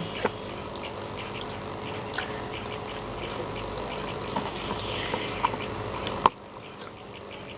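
Eating sounds: chewing on fried tempe, with a few short crisp clicks over a steady background of insects chirping. A sharp click about six seconds in, after which the background drops lower.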